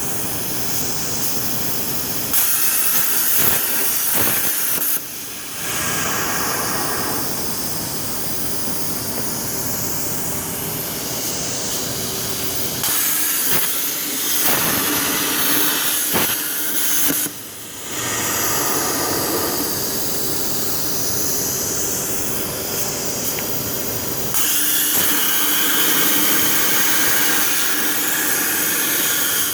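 CNC plasma torch cutting 4 mm steel plate: the arc makes a loud, steady hiss that grows louder and harsher in stretches, and cuts out briefly twice, about five and seventeen seconds in, as the torch finishes one cut and starts the next.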